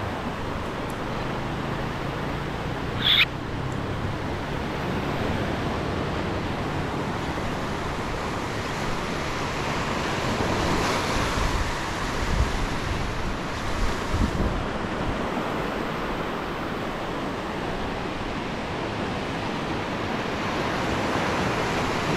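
Ocean surf breaking and washing up a sand beach, with wind buffeting the microphone. A brief sharp high sound cuts through about three seconds in.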